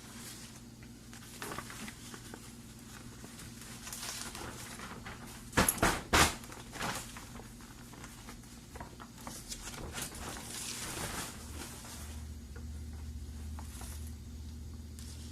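Plastic tarp material rustling and crinkling as it is handled, folded into pleats and pinned, with a few sharp knocks about six seconds in.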